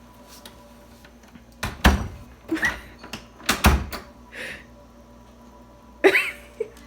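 A door being handled: two loud, heavy thumps about two seconds apart, with lighter knocks between them. A short high sound comes near the end.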